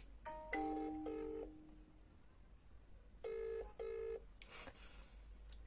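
Phone ringback tone over a speakerphone: a double ring, two short buzzes in quick succession, heard once past the middle as the dialled number rings. Near the start there are a few short electronic beeps as the call goes through, and a brief rustle follows the ring.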